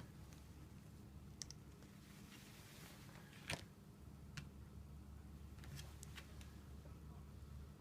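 Near silence: room tone with a steady low hum and a few faint clicks, the loudest about three and a half seconds in.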